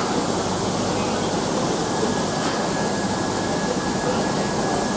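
Steady, loud hiss of steam escaping from LMS Coronation Class Pacific steam locomotive 46233 'Duchess of Sutherland' as it stands at the platform.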